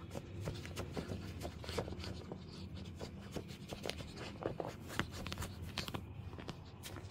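Irregular scratchy rustling and light clicks as small long-haired dogs scrabble and nuzzle against a person's clothing, close to the microphone, with a low steady hum underneath.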